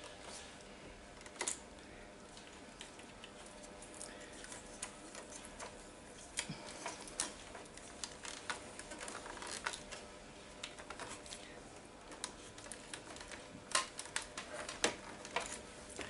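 Faint, irregular clicks and taps of fingers fitting a wire and its push-on connector into the plastic switch housing of a Dyson DC07 vacuum cleaner, with a few sharper clicks near the end.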